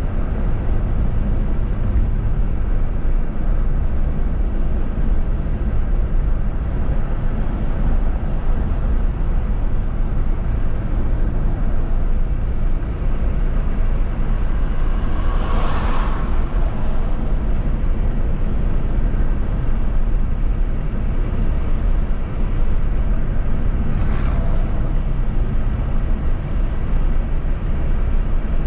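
Steady road and wind noise of a vehicle driving on a highway, with a brief whoosh about 16 seconds in and a fainter one near 24 seconds, like vehicles passing.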